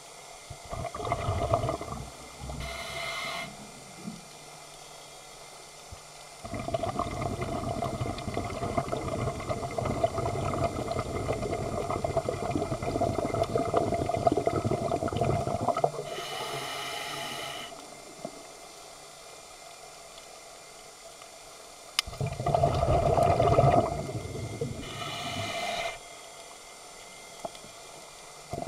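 Scuba diver breathing underwater through a regulator: short hissing inhalations alternating with bubbling exhalations, the longest exhalation starting about six seconds in and lasting around nine seconds.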